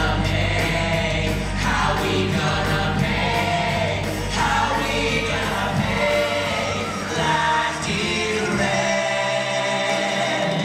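A stage cast singing through microphones, lead voices with an ensemble chorus, over loud rock accompaniment.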